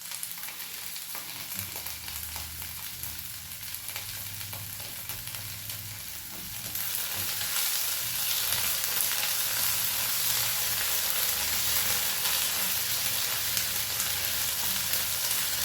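Chopped onions, curry leaves and ginger-garlic paste frying in hot coconut oil in a pan, sizzling as they are stirred. The sizzle grows louder about seven seconds in.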